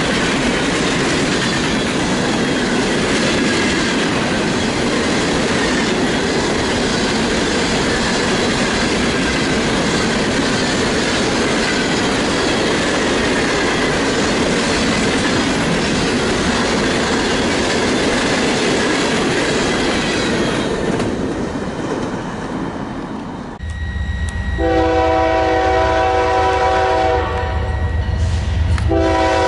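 Empty Norfolk Southern coal hopper cars rolling past, a dense steady rattle and rumble of steel wheels on rail that fades away about three-quarters of the way through. Then a BNSF diesel locomotive rumbles as it approaches and blows its horn, several notes at once: one long blast of about three seconds, and a second blast starting just before the end.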